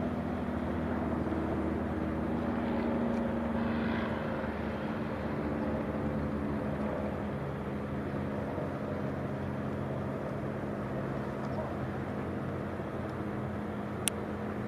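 Paramotor's small propeller engine running with a steady drone at low revs. A single sharp click near the end.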